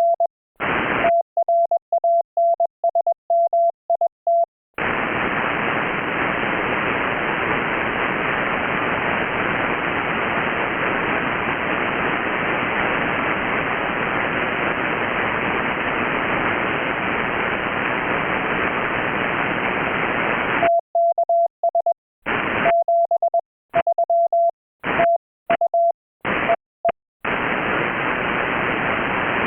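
Morse code (CW) tone at about 700 Hz, keyed in dits and dahs, then a long stretch of steady radio receiver hiss from the transceiver's receive audio. Near the end the keyed tone returns, alternating with short bursts of hiss, before the hiss runs steady again.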